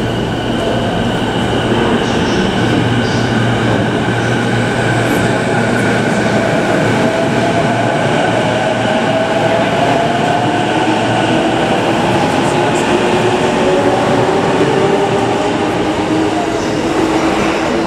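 JR Nambu Line E233-series electric train pulling out of the platform and picking up speed. Under a steady rumble of wheels on rails, the traction motors' whine climbs in pitch as it accelerates.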